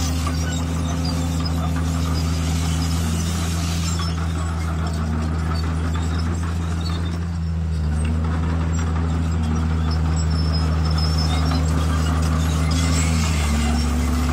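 Heavy diesel engine of earthmoving machinery running steadily under load, its pitch dipping and recovering slightly a few times.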